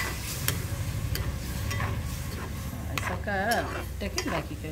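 Steel spoon stirring thick beetroot-and-coconut pachadi in a metal kadai, scraping and clicking irregularly against the pan.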